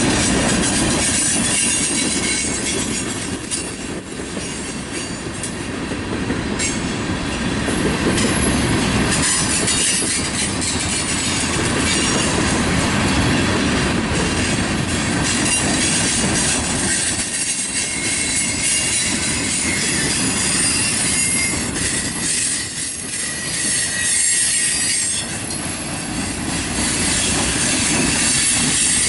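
Freight train's tank cars and an open hopper car rolling past, steel wheels rumbling and clacking over the rail joints, with a thin high wheel squeal at times.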